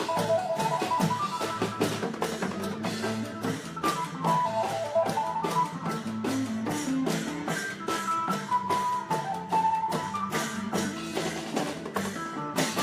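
Isan long-drum (klong yao) ensemble playing a fast, driving beat, with a melody line over the drumming.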